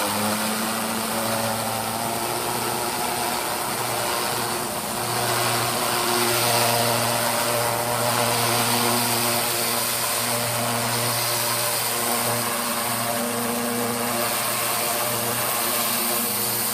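Greenworks 3000 PSI pressure washer running under load with the trigger held: a steady motor and pump hum under the loud hiss of the high-pressure water jet striking vinyl siding.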